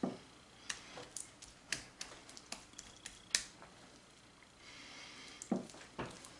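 Scattered light clicks and taps from a spatula spreading soft herb butter over a raw rib roast and knocking against the serving platter, the loudest tap about halfway through.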